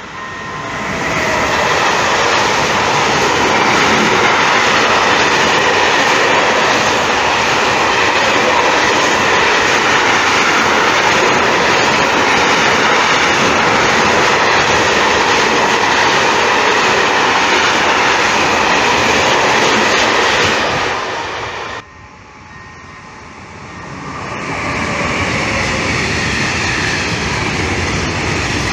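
Freight train hauled by a Siemens Vectron electric locomotive passing close by at speed, its wagon wheels running over the rails in a loud, steady noise. The noise cuts off suddenly about 22 seconds in and builds back up a couple of seconds later as more wagons roll past.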